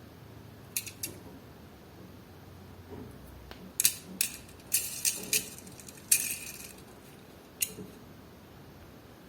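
Diecast toy car packaging being handled and opened: a series of sharp plastic clicks and crackles, bunched together in the middle with one longer crinkle.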